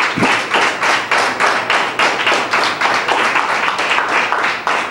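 Congregation clapping together in a steady, quick rhythm, about four to five claps a second.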